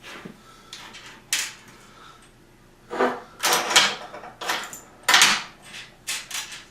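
Metal door hardware and hand tools being handled: a string of irregular clanks and rattles, louder in the middle and again about five seconds in.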